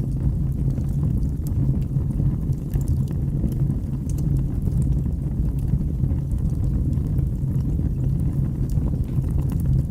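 Wood fire burning in a fireplace: a steady low roar with scattered crackles and pops.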